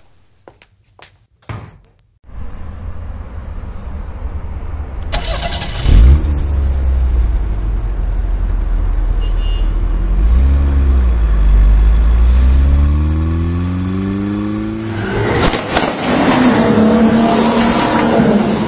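Car engine running and revving, with a loud sudden burst about six seconds in and a rev that rises steadily in pitch later on.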